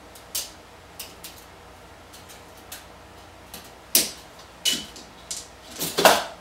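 A string of separate clicks and knocks from hand tools and parts being handled on a partly built 3D printer's steel-rod frame. The loudest knock comes about four seconds in, and a longer clatter near the end.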